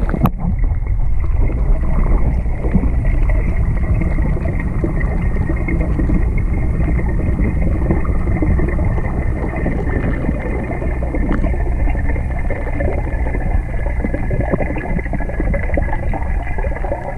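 Water in a tilapia tank heard underwater: a steady muffled rush of water pouring in from the inflow pipe and the sponge filter bubbling, with a thin steady high tone above it.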